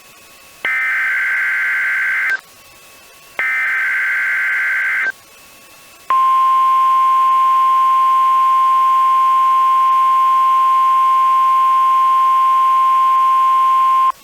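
NOAA Weather Radio EAS alert tones: two harsh buzzing SAME header data bursts, the last of the three repeats, then after a short gap the steady 1050 Hz weather radio warning alarm tone, held for about eight seconds and cut off sharply. The tones signal that an emergency alert message follows.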